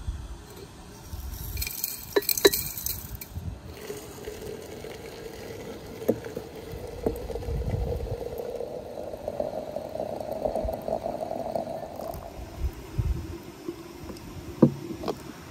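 Water poured into a glass teapot of dried chamomile flowers, the pitch of the filling sound rising as the pot fills. A few clinks of glass and metal come near the start and again near the end.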